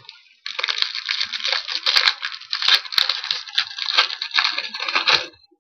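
Trading-card pack wrapper crinkling and tearing as it is ripped open: a dense crackle with sharp clicks, lasting about five seconds and stopping shortly before the end.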